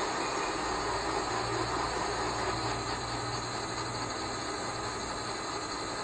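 Universal milling machine running with a steady mechanical noise; a low hum joins about half a second in and drops away around four seconds in.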